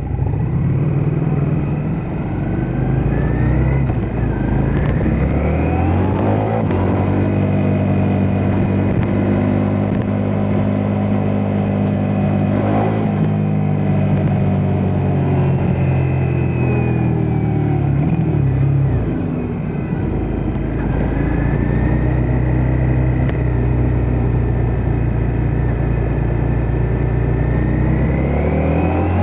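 Ducati Multistrada V4S's V4 engine under way, rising in pitch over the first several seconds as the bike accelerates, then running at a steady speed. It eases off about two-thirds through and climbs again near the end.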